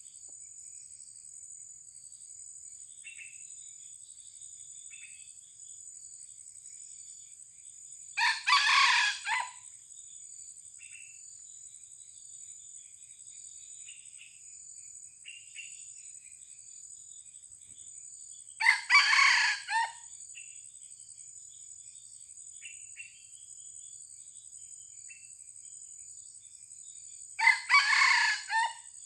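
Red junglefowl rooster crowing three times, about ten seconds apart, each crow lasting about a second. A steady high insect drone and faint small bird chirps run underneath.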